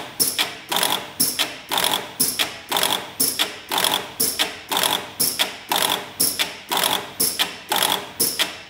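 Pneumatic slides of a tablet-counting machine's counting head cycling rapidly in a test sequence: evenly repeated sharp clacks, about two to three a second, stopping near the end.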